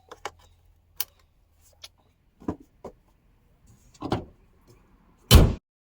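A few separate knocks and clicks, with one louder thud about five seconds in.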